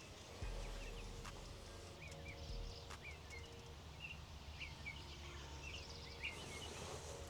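Faint outdoor ambience with a small bird chirping in short, repeated calls, over a low steady hum and a few light clicks.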